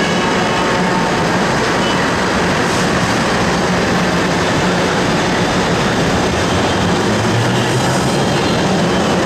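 Manila LRT Line 1 third-generation light-rail train pulling out of the station, wheels rumbling on the rails under a steady low motor hum. Near the end the hum begins to climb in pitch as the train gathers speed.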